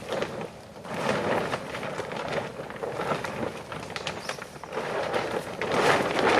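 Hand saw cutting through wood: rasping back-and-forth strokes that swell and fade, loudest near the end.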